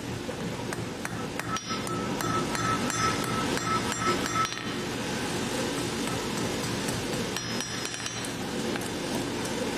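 Hand hammer striking hot steel on an anvil in a run of blows, the anvil ringing with a clear tone between them, then a few more blows near the end. A steady low rumble runs underneath.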